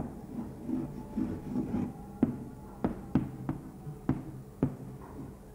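Chalk tapping and scraping against a blackboard as Arabic script is written, with about six sharp taps in the second half.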